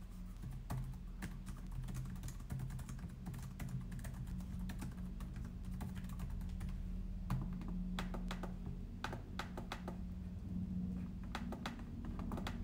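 Typing on a BMAX Y11 laptop keyboard: quick, irregular key clicks, in denser runs around the middle, over a low steady hum.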